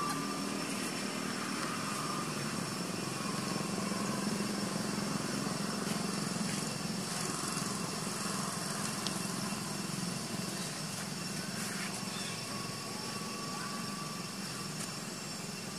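Steady drone of a small engine running, with no break, and faint high steady tones above it.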